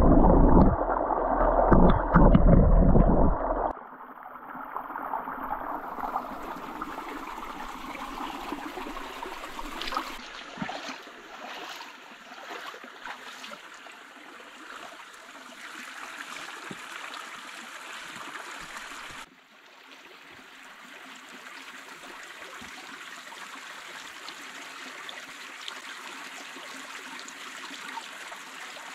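Muffled, loud gurgling of stream water heard underwater for the first few seconds. Then a shallow forest stream trickling and flowing steadily over rocks.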